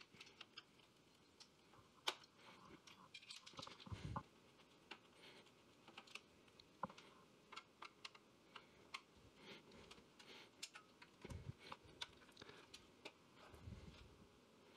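Faint, irregular small clicks and clatter of a screwdriver turning screws and of metal and plastic parts being handled inside a computer case while the motherboard is unscrewed and lifted out.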